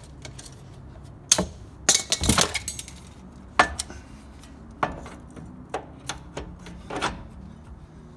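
Metal-on-metal clanks and clinks as the upper ball joint and the steering knuckle (spindle) are worked back together. A sharp knock about a second in, a quick clatter of several knocks about two seconds in, then single knocks every second or so.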